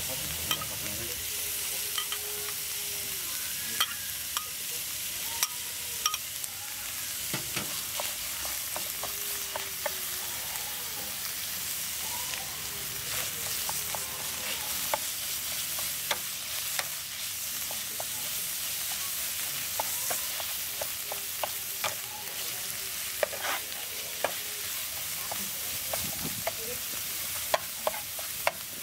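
Minced aromatics and chili paste sizzling in oil in a wok, stirred with a steel spatula that scrapes and clicks against the pan at irregular intervals over a steady hiss.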